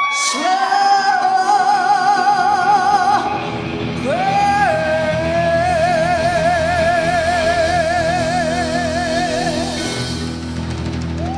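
Female blues singer holding two long notes with wide vibrato, the first about three seconds long and the second about five, over a live electric blues band.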